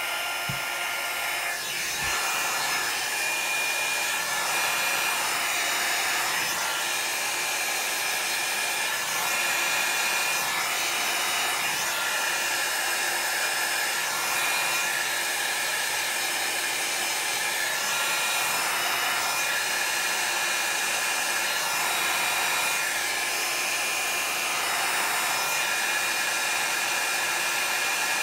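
Small handheld electric blower running steadily with a high motor whine, blowing air over wet alcohol ink on paper to push and dry it.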